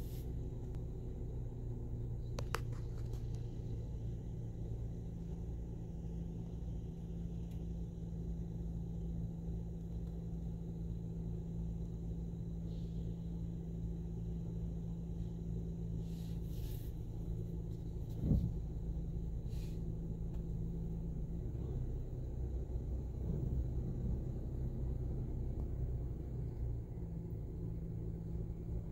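Diesel engine of a Mack front-loader garbage truck running steadily while its hydraulic lift arms work, with a sharp clank about two and a half seconds in and a louder metallic bang a little past halfway.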